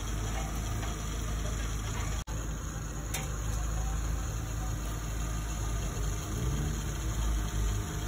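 Off-road vehicle engine idling, a steady low hum. The sound drops out for an instant about two seconds in.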